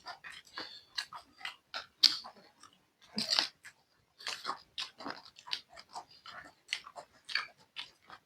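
Close-miked chewing and crunching of crunchy food, irregular crisp crackles and mouth clicks several times a second, with a short pause about three and a half seconds in.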